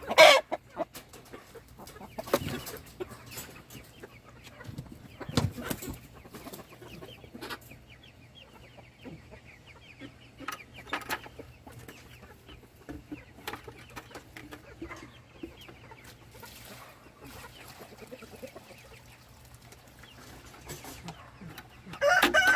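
Domestic chickens clucking softly, with scattered knocks and rustles; a rooster starts to crow at the very end.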